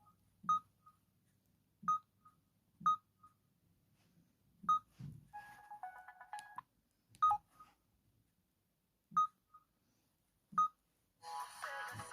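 Samsung Corby mobile phone's short key beeps, each with a light tap, every second or two as its menu is stepped through. A brief ringtone snippet plays about five seconds in, and a ringtone starts playing near the end.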